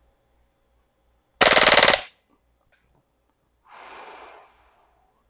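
WE 999C (HK G36C) gas blowback airsoft rifle firing one short full-auto burst of about half a second, at roughly 19 BBs a second. A couple of seconds later comes a quieter blown-out breath through pursed lips.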